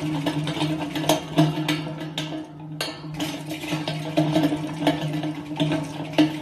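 Chinchilla running fast in a metal exercise wheel: the spinning wheel gives a steady hum under a rapid, uneven clatter of clicks and knocks.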